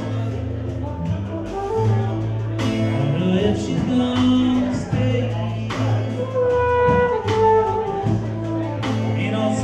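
Live small-band music: acoustic guitar and steady bass notes under drums, with a trumpet playing held melody notes and a man singing.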